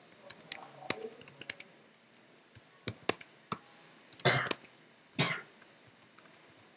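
Typing on a computer keyboard: scattered key clicks at an uneven pace. Two louder, short noisy bursts come about a second apart just past the middle.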